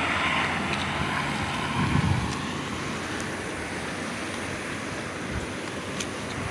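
Road traffic passing on a bridge: cars going by over a steady rushing hiss, with a low swell about two seconds in as a vehicle passes.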